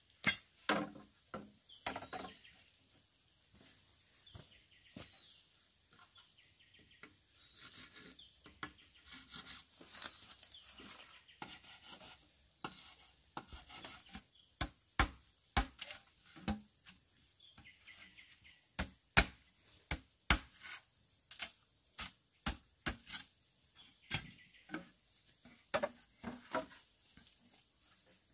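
Wood being worked by hand: irregular sharp knocks and taps with some rubbing and scraping, the knocks coming more often from about halfway through.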